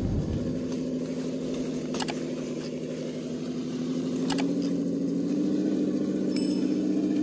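Scale RC crawler's electric motor and gearbox whining steadily as it crawls along, the pitch and level rising a little about four seconds in, with a couple of sharp clicks.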